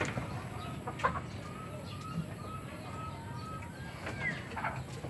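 Chickens clucking: a run of short, even clucks about three a second for a couple of seconds, with a few other brief bird calls around it.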